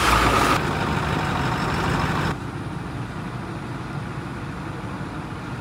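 Truck engine idling with a steady low rumble. The sound drops abruptly and thins about two seconds in, then runs on more quietly.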